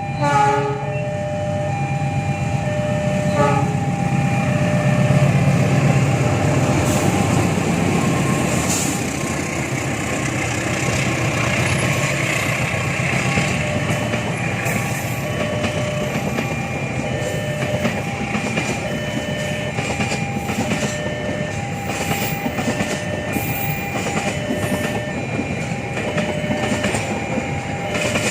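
A train passing close by: two short horn blasts, one at the start and another about three seconds in, then the steady rumble of the train running past with its wheels clacking over the rail joints. A repeating two-note tone sounds beneath it throughout.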